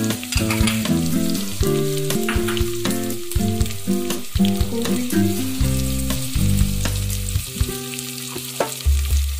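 Chopped vegetables sizzling in hot oil in an aluminium pressure cooker, stirred with a metal spatula that scrapes and taps against the pot, over background music.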